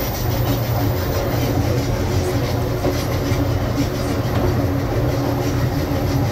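Amtrak Southwest Chief passenger train rolling along the track, heard from aboard: a steady low rumble of wheels and running gear.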